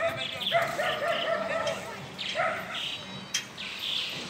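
An animal calling in several quick runs of short, repeated notes at one steady pitch.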